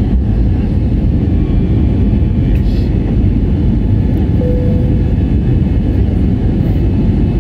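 Steady cabin noise of an Airbus A320-271N in its climb-out just after takeoff: the Pratt & Whitney PW1100G geared turbofans at climb thrust and the rushing air, heard as an even, loud low rumble.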